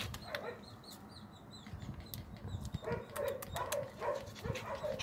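Dog giving short, high yips and whines, mostly in the second half, with faint small bird chirps about a second in.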